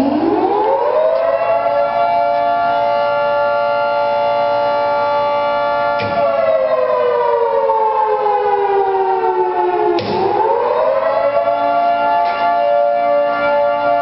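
Federal Signal 3T22 three-tone outdoor warning siren sounding the wail (attack) signal. Its chord winds up to full pitch about a second and a half in, holds, slides steadily down from about six seconds in, then winds back up about ten seconds in and holds again.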